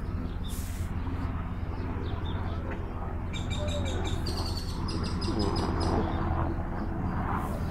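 A bird's rapid chirping trill, a quick even run of short high notes, from about three to five and a half seconds in. Under it runs a steady low rumble.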